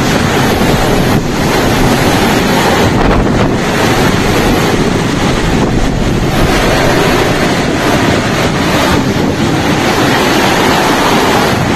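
Hurricane-force wind blowing hard and buffeting the microphone: a loud, steady rushing noise with small surges.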